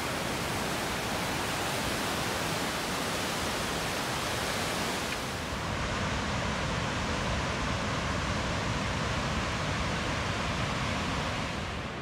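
Waterfall and river rapids rushing: a steady, loud roar of falling water. About halfway through it shifts to a duller sound with less hiss and more low rumble.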